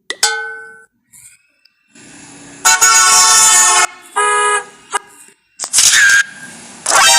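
A string of short comedy sound effects played one after another. First comes a clanging ding that rings out and fades within about half a second. From about two and a half seconds in there are four horn-like blasts, the first about a second long and the rest shorter.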